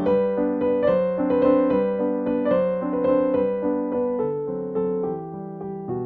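Background piano music: a gentle melody of evenly paced notes.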